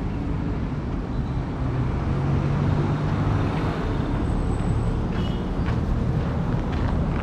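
City road traffic going by: a steady rumble of engines and tyres, with a heavier vehicle's low engine drone growing louder for a couple of seconds in the middle.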